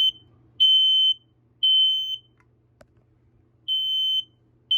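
Smoke alarm being tested, sounding its loud, high-pitched three-beep alarm pattern. It gives three half-second beeps, pauses about a second and a half, then starts the next round of beeps.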